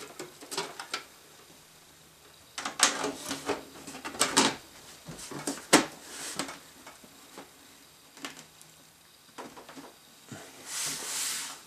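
A PC case being closed up after cable tidying: scattered clicks and knocks from cables and metal panel handling, then a short sliding scrape near the end as the side panel slides shut.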